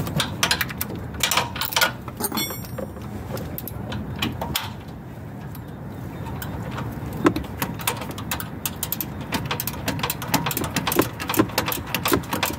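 A 3/8-inch drive, 72-tooth ratchet clicking as it tightens the 17 mm bolt on the lower engine mount in short strokes. There are a few quick runs of clicks at first, then denser, faster clicking over the last few seconds.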